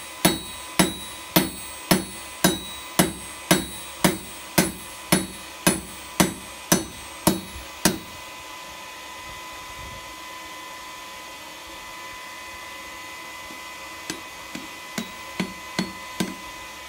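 Hand hammer striking a red-hot steel bar on an anvil: a steady run of ringing blows about two a second, then a pause of several seconds and a short run of lighter blows near the end.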